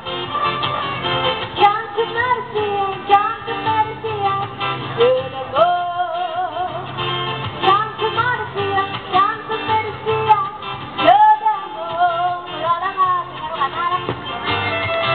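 Music: acoustic guitar under a wavering melody line with vibrato.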